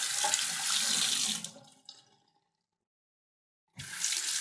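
Tap water running into a sink while hands are washed under it. The water fades away about two seconds in; after about a second and a half of silence it starts again abruptly near the end.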